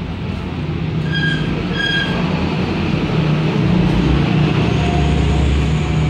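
Steady low engine rumble that grows louder in the second half, with two short high chirps a little over a second in.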